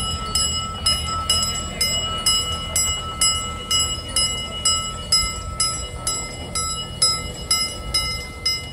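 The bell of an 18-inch-gauge live-steam locomotive ringing steadily as the engine runs past, at about two to three strokes a second. Beneath it is a low rumble of the locomotive moving on the track.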